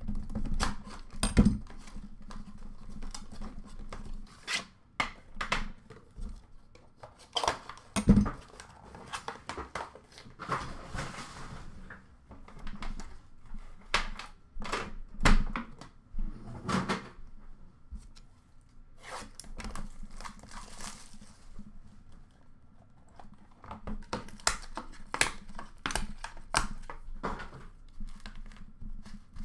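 Hands opening a metal trading-card tin and its cardboard box: scattered knocks and clicks as the box and tin lid are handled, with two longer sliding sounds in between.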